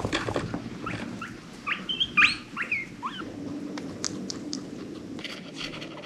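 Guinea pig squeaking: a run of short, high squeaks, some sliding up or down in pitch, over a couple of seconds, followed by a few sharp clicks.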